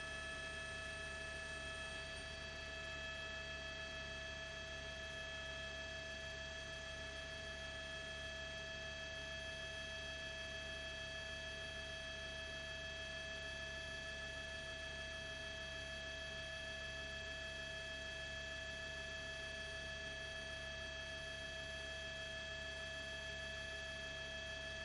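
Steady whine made of several high tones held without any change in pitch or level, over a low steady hum.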